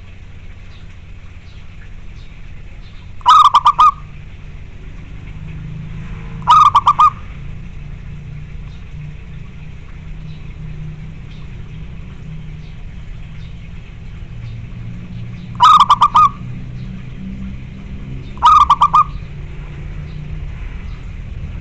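Zebra dove cooing: four short, loud bursts of rapid staccato coos, falling in two pairs about three seconds apart, so close to the microphone that they clip. A steady low rumble runs underneath.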